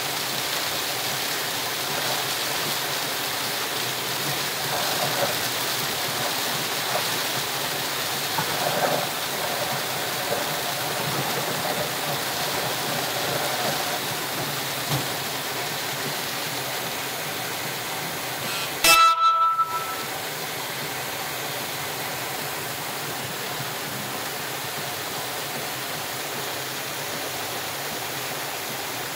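Steady rush of heavy rain on a moving car and its tyres on the flooded road, heard from inside the car. About two-thirds of the way through there is a brief loud sound with a sharp start and a pitched ring.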